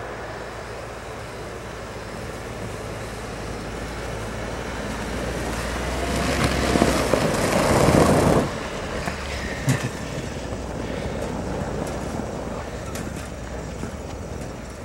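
Off-road 4x4 engine revving up as the truck drives hard through snow, rising to a loud peak that cuts off suddenly about eight and a half seconds in, followed by a couple of sharp knocks.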